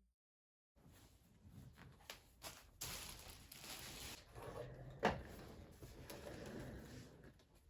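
Handling and assembly noise from a computer chair's parts: irregular clicks, rubbing and knocks, with one sharp knock about five seconds in.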